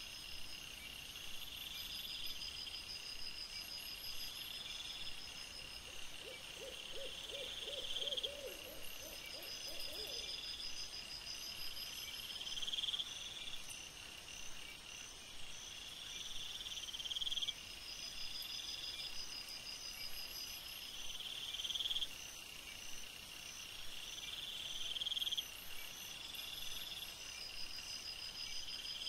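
Night insect chorus of crickets trilling. One high trill swells and cuts off every two to three seconds over steadier pulsing chirps. About a quarter of the way in, a brief run of lower, quick pulses rises in pitch.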